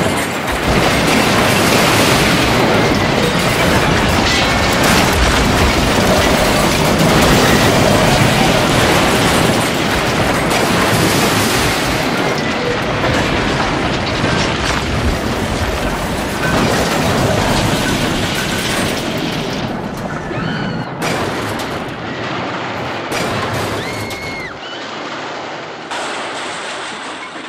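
Locomotive smashing through a station wall and sliding across the concourse: a long, dense crash of breaking masonry, rumbling and falling debris. The din is loudest over the first half and dies away over the last several seconds, with a few sharp knocks and short high cries or squeals near the end.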